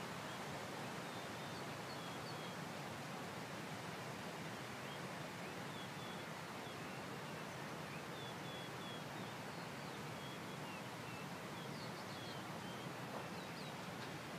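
Birds chirping faintly outdoors: short high notes scattered through, coming more often near the end, over a steady even hiss.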